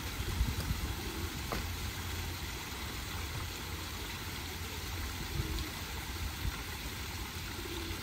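Steady rush and splash of a small garden waterfall falling over rocks into a pond, over a low rumble.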